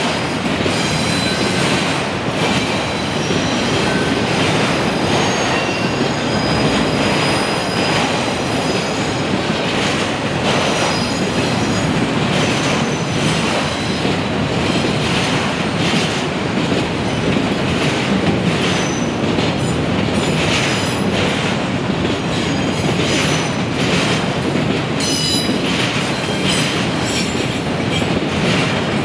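Freight trains rolling past: a steady rumble of steel wheels on rail, with short, high-pitched wheel squeals and scattered clacks coming and going throughout.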